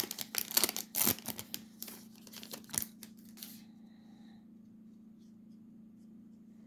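Foil trading-card pack wrapper being crinkled and torn open, dense crackling that stops about three and a half seconds in, leaving a faint steady low hum.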